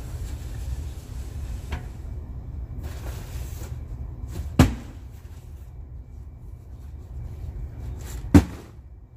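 Cardboard cases being set down on a hard floor: two sharp thumps about four seconds apart, the second the loudest, with a fainter knock before them, over a steady low rumble.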